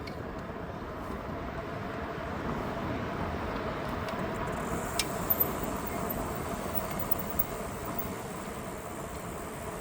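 Aventon Aventure.2 electric bike in motion: a steady rush of tyre and drive noise with a faint even hum, a sharp click about five seconds in and two quick ticks right after.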